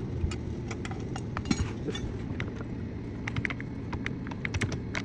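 Scattered light metallic clicks and clinks, like tools being handled, over a steady low rumble.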